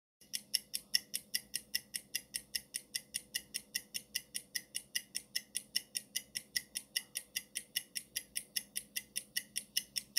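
Countdown-timer ticking sound effect: a fast, even clock-like tick, about five ticks a second, counting down the answer time.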